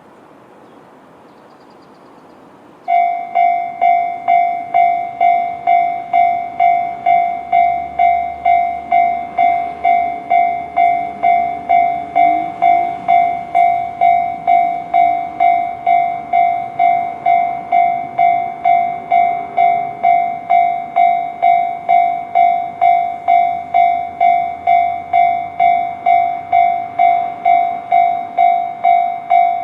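A bell struck over and over at about two strikes a second, starting suddenly about three seconds in and going on steadily, each strike fading before the next.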